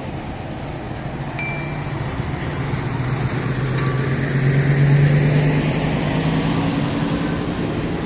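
Street traffic noise with a heavy vehicle's engine hum growing louder to a peak about five seconds in, then easing off as it passes.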